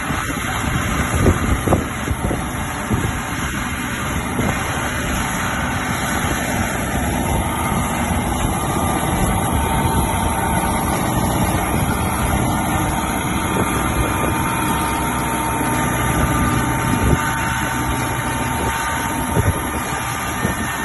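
Tractor diesel engine running steadily under load while it drives a rear-mounted rotary mulcher that chops dry crop residue (sugarcane trash) in the field.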